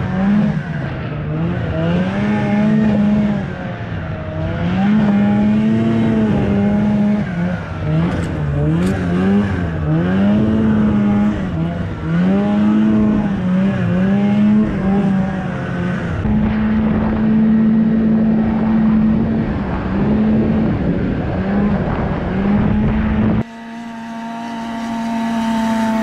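Arctic Cat 370 two-stroke snowmobile engine heard from the rider's seat, revving up and down again and again as the throttle is worked through the trees. About 23 seconds in, the sound cuts to the same sled heard from off the machine, running at a steady pitch and growing louder.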